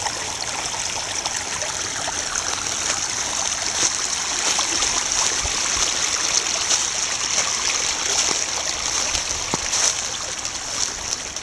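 Shallow snowmelt stream babbling steadily as it flows over its bed.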